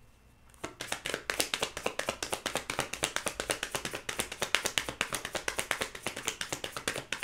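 Tarot deck being shuffled by hand: a fast, even patter of cards slapping together, about ten a second, starting about half a second in.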